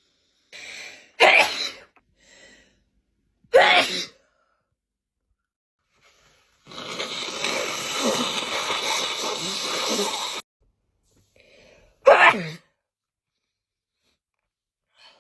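A woman's allergic sneezing fit: three loud sneezes, about one, three and a half and twelve seconds in, each after a quick breath in. Between the second and third there is a rough, noisy sound lasting nearly four seconds that cuts off suddenly.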